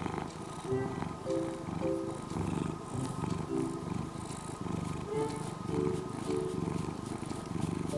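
Domestic cat purring steadily as it is stroked, with light background music of short melodic notes over it.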